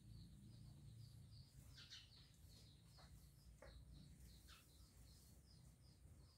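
Very faint birds chirping: a steady run of short, high chirps about three a second, with a few louder chirps among them.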